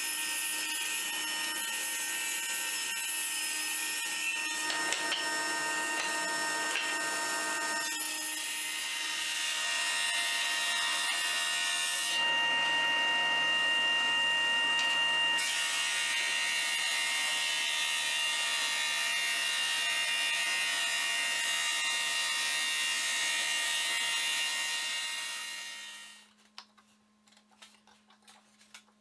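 Woodworking machines running in turn: a table saw ripping a board, then a drum sander with boards fed through it, both with steady whining motor tones. The noise fades out near the end, leaving a quiet room with faint light ticks.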